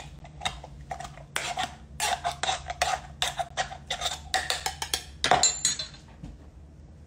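Mango and dragon fruit being smashed in a stainless steel cocktail shaker tin with a metal bar spoon: rapid clinks and knocks of the spoon against the tin, loudest about five seconds in, stopping in the last second.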